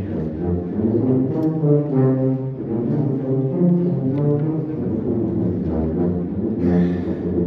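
Concert band playing, with the brass prominent in slow, sustained chords in the low and middle range.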